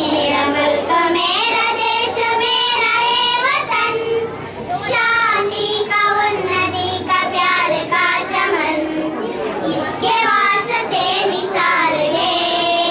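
A group of young girls singing a song together into a microphone.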